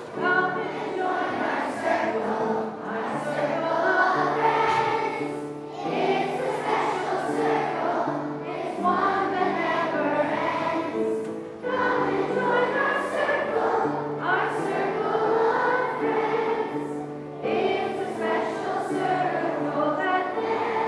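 A large group of voices singing a song together, in phrases of a few seconds each with short breaks between.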